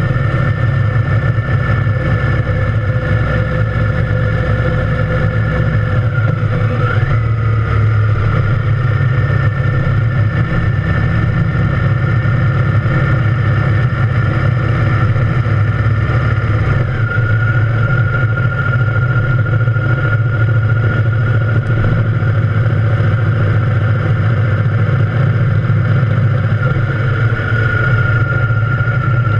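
Triumph Thunderbird Storm's parallel-twin engine running steadily while riding, heard from on the bike. Its pitch steps down about six seconds in and again about seventeen seconds in.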